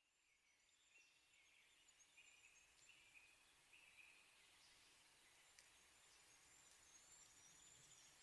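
Near silence: a very faint outdoor ambience fades in over the first second, with short, high, repeated chirping of birds or insects.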